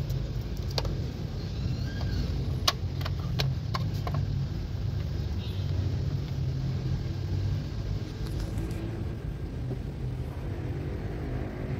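A few sharp clicks from the spring clips on the Toyota Avanza's plastic air filter housing as they are unlatched by hand, over a steady low engine rumble.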